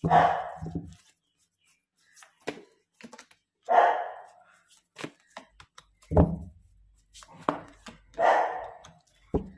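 Hand shuffling of a tarot deck: three short rustling bursts of cards sliding over one another. In between come three sharp taps of cards knocked against the deck or the table.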